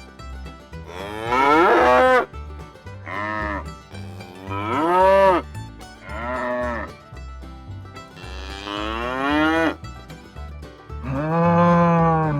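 Cattle mooing: about six long calls, each rising and then falling in pitch, the last one starting near the end. Background music with a steady beat runs underneath.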